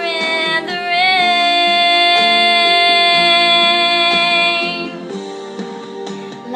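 A woman singing over instrumental accompaniment, holding one long steady note for about four seconds, most likely the final word "rain" of the chorus. The note ends about five seconds in, and the accompaniment carries on alone.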